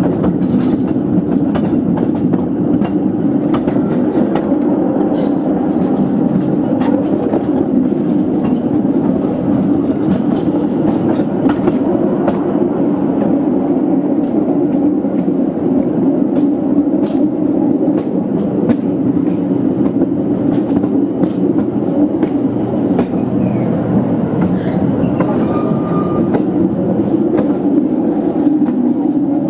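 Narrow-gauge field railway train running: a steady rumble of wheels on the light track with frequent clicks over rail joints, and brief faint wheel squeal near the end as it nears a curve.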